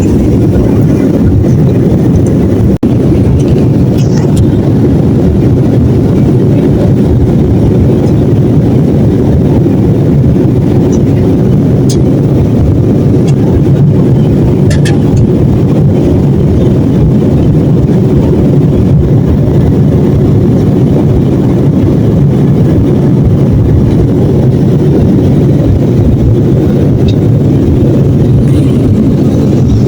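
Passenger airliner's jet engines and airflow heard inside the cabin during takeoff: a loud, steady low rumble with a constant hum.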